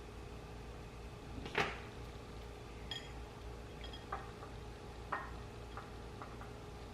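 Light kitchen clatter: a sharp knock about one and a half seconds in, then a handful of softer taps and small clinks, a couple with a brief ring like utensil on dish, over a steady low hum.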